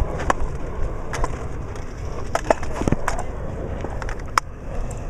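Rumbling handling and movement noise on a shaky, moving camera, with several sharp clicks and snaps at irregular intervals, the sharpest near the end.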